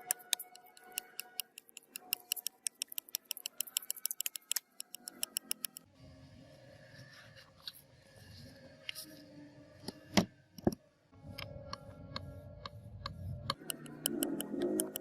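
Background music with a fast ticking beat; past the middle a rougher low noise comes in, with two sharp knocks close together.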